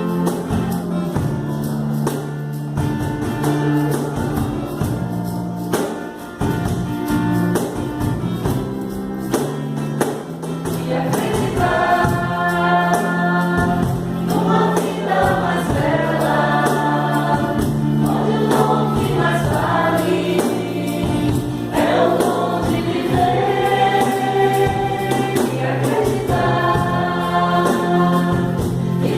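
Live band music: acoustic guitar, bass and hand percussion with a tambourine play an instrumental passage, then several voices come in singing together about eleven seconds in.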